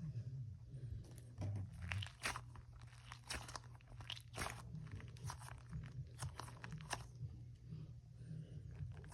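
Plastic packaging crinkling and crackling in irregular bursts as squishy toys are unwrapped, over a low steady hum.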